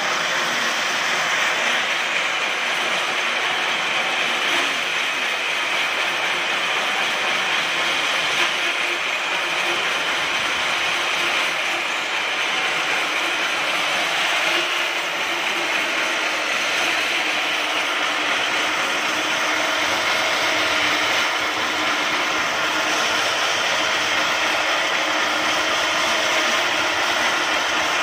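Horizontal band sawmill ripping lengthwise through a log: the electric-motor-driven band blade runs steadily through the wood with a dense, even, loud cutting noise, along with the rattle of the saw head's machinery.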